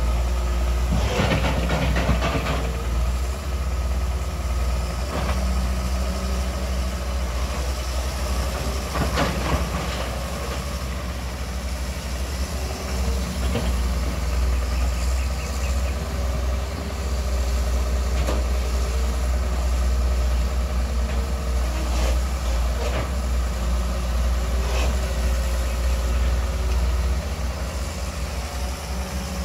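Long-reach excavator's diesel engine running steadily, with a few short knocks over it, the strongest cluster a second or two in.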